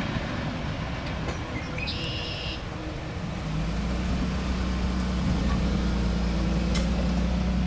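Rolling noise of a passing CSX freight train tailing off. About halfway through, a steady low engine drone sets in and holds.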